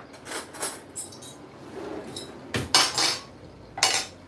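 Cutlery clinking and clattering against a dish: a run of sharp clinks, with the loudest cluster about two and a half to three seconds in and another near the end.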